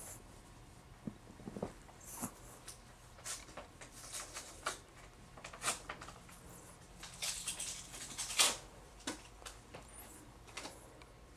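Faint, scattered scratchy rustles of a hand rubbing a puppy's chin, fur and fluffy costume.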